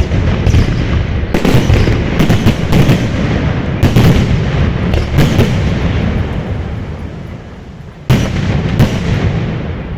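Aerial fireworks going off: a fast barrage of sharp bangs over a continuous low rumble for about six seconds, dying away, then two more loud bangs near the end.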